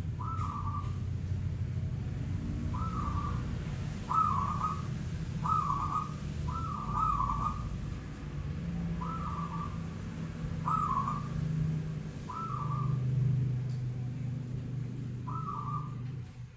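Zebra dove (perkutut) cooing: short, stuttering, whistle-like phrases repeated about nine times at uneven gaps. A steady low hum runs underneath.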